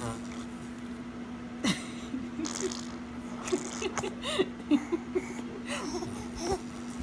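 Baby making a string of short high squeaks and wet spluttering mouth noises with a mouthful of rice cereal, one louder splutter about two seconds in, over a faint steady hum.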